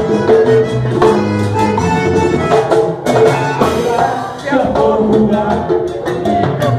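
Live vallenato music: a button accordion playing over a steady percussion beat.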